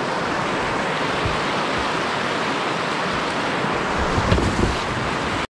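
Shallow, rocky river rushing around a whitewater kayak, a steady rush of water, with a few low thumps about four seconds in.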